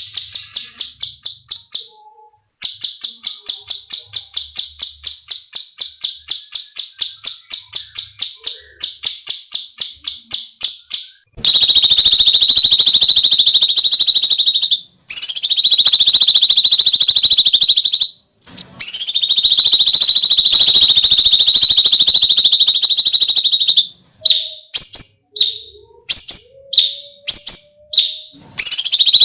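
Cucak cungkok singing loudly: a long run of rapid, evenly spaced high notes, about five a second, then from about eleven seconds in long shrill screams held for several seconds each, and near the end a string of short falling notes.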